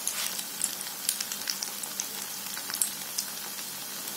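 Malpua batter deep-frying in hot ghee, a steady sizzle with scattered small crackles.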